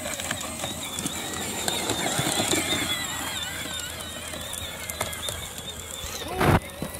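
Battery-powered ride-on toy tractor driving over dry cut grass: its small electric motor and gearbox give a thin whine that wavers in pitch, with crackling and plastic rattling from the wheels on the stubble. A loud thump about six and a half seconds in.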